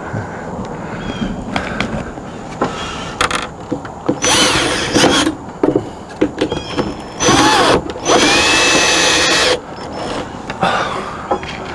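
Power drill driving screws to fasten an RV awning arm to the awning: three runs of the motor, about four seconds in, about seven seconds in and a longer one right after, its pitch winding up and down, with smaller clicks and knocks between them.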